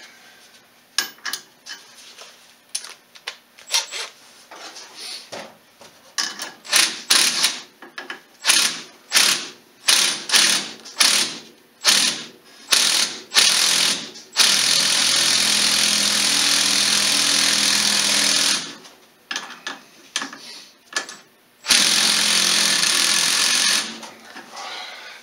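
Hand socket ratchet clicking in short back-and-forth strokes, about two a second, running a bolt in on the ATV's rear shock mount. Then a power tool runs steadily for about four seconds, stops, and runs again for about two seconds near the end.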